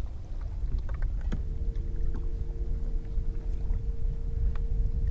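Low, steady rumble of a fishing boat on the water, with a steady hum joining in about a second and a half in and a few small clicks.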